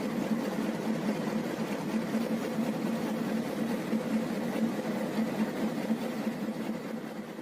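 Engine of a tracked support vehicle running steadily, an even low drone that fades slightly near the end.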